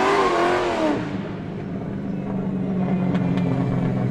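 A car's tyres squealing in a wavering pitch for about the first second, then a steady low engine hum.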